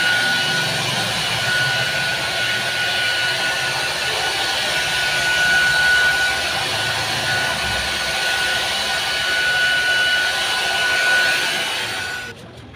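Handheld hair dryer running steadily on wet hair: a rush of air with a constant high motor whine, cutting off suddenly near the end.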